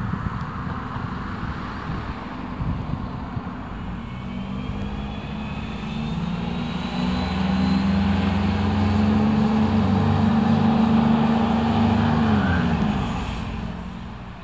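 Stadler Regio-Shuttle RS1 diesel railcar pulling out of the station: its diesel engine note climbs in pitch and grows louder as it accelerates past, with a faint rising whine above it. About twelve seconds in, the engine note drops in pitch and fades as the railcar moves away.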